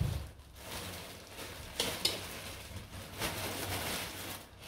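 Clear plastic bag of dog chew sticks rustling and crinkling as it is handled and pulled open, with a few sharper crackles about two seconds in.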